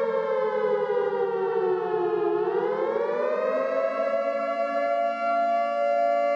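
Two-tone civil defense warning siren wailing: its pitch slides down, turns back up about two and a half seconds in, and then holds steady.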